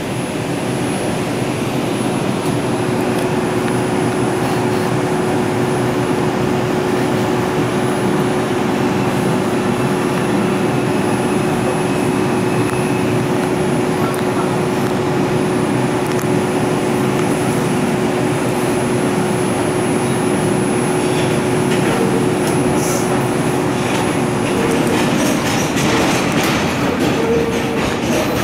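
Inside an R142 subway car running through a tunnel: steady rumble of wheels on rail and running gear under a constant hum. Near the end the hum stops and sharper rattles and clicks come in.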